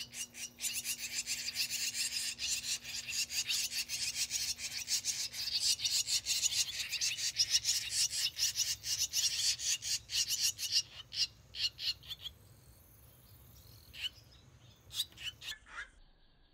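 A brood of barn swallow nestlings, about eighteen days old, giving rapid, overlapping begging chirps. After about eleven seconds the chattering thins to scattered single chirps, and it stops near the end.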